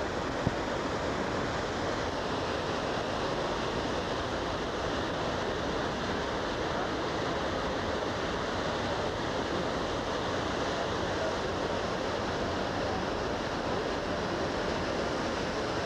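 Steady rushing of wind and the ferry's churning wake, heard from the deck of a moving ferry, with wind buffeting the camcorder microphone. There is a single short tap about half a second in.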